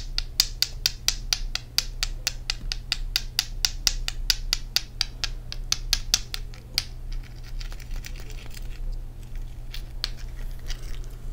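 Fingernails tapping quickly on a piece of ice, about seven sharp clicks a second. About seven seconds in, the taps give way to softer, irregular scratching and rubbing on the ice.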